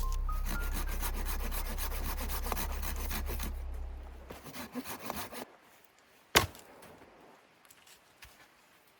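A music transition with a deep sustained bass, over a rapid run of scraping clicks, fades out over the first four and a half seconds. After that come quiet rubbing and handling noises, and one sharp, loud knock about six and a half seconds in.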